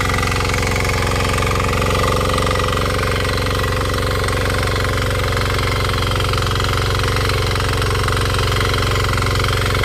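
KisanKraft 6 HP power weeder engine running steadily at constant speed, with a fast, even knocking beat.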